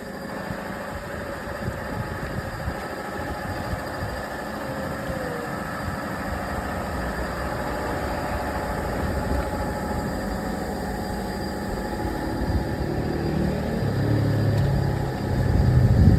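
A motor running steadily, growing louder and deeper over the last few seconds.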